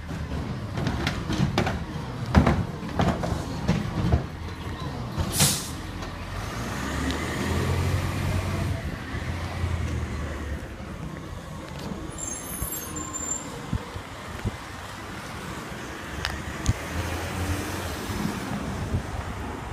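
Recycling truck's engine running, with several knocks in the first few seconds and a short hiss of released air, typical of an air brake, about five seconds in. The engine note rises and falls around the middle.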